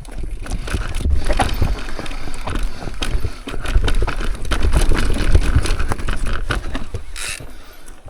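Mountain bike rolling over rock on a trail: a low rumble with many rattling clicks and knocks from the bike.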